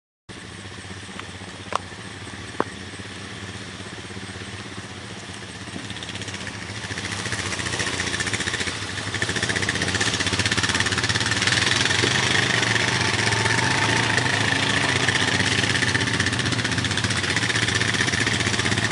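ATV engine running, getting louder from about six seconds in and then holding steady. Two sharp clicks come near the start.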